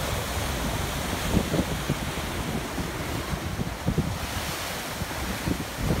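Ocean surf churning and washing against a rocky shore, with seawater pouring back off the rock ledges in a steady rushing wash.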